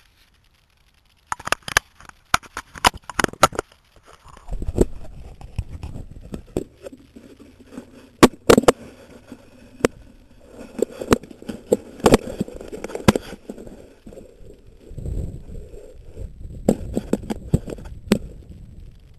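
Handling noise on a helmet-mounted action camera: clusters of sharp clicks and knocks as it is touched and adjusted, with low rumbling wind on the microphone in between.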